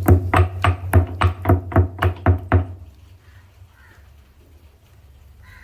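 A run of quick, evenly spaced knocks, about four a second, that stops about two and a half seconds in.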